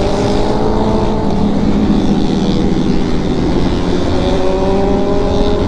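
Kawasaki Z900 motorcycle's inline-four engine running at a steady speed while riding, its pitch holding nearly even with only slight drifts.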